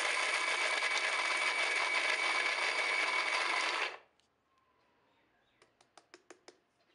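Electric mixer grinder running steadily at full speed, dry-grinding nuts and seeds into a powder, with a steady high motor tone. It stops suddenly about four seconds in.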